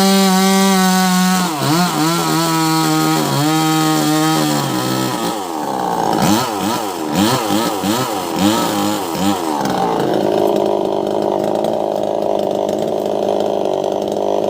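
Wagner WG580 two-stroke chainsaw running at high revs with a steady high pitch. From about a second and a half in, the throttle is worked up and down, the pitch rising and falling many times, and at about ten seconds in it settles to idle.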